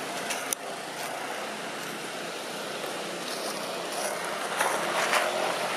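Steady outdoor background rushing noise, swelling briefly about five seconds in, with a couple of faint clicks near the start.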